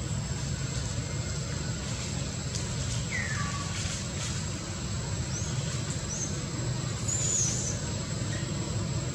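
Outdoor ambience: a steady low rumble with a thin, steady high whine, and a few short high chirps, one about three seconds in and others between five and eight seconds in.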